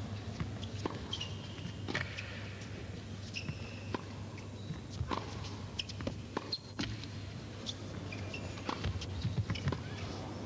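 Tennis rally: repeated sharp racket strikes on the ball, with players' shoes squeaking on the court in between, over a steady low hum.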